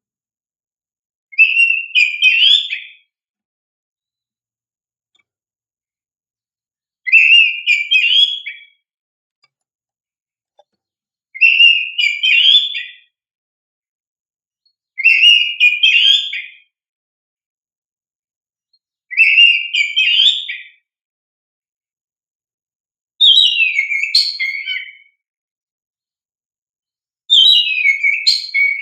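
Oriental magpie-robin (kacer) singing in short, loud whistled phrases: seven bursts of song of a second or two each, a few seconds apart. The last two phrases slide down in pitch.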